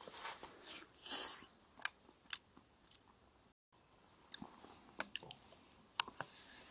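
Seasoned chicken pieces frying in oil in a small camp frying pan, sizzling with irregular crackles and sharp pops. Near the end metal chopsticks tap against the pan as the pieces are turned.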